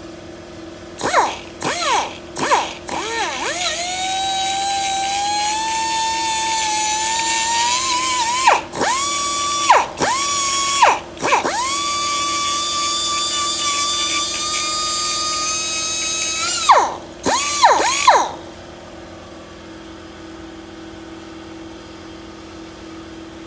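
Air tool with a grinding bit whining as it roughens the aluminum engine clutch case so JB Weld can grip. It is triggered in a few short spin-ups, then runs for several seconds at a stretch with its pitch slowly rising, winding down with a falling whine at each release. It stops about three-quarters of the way through.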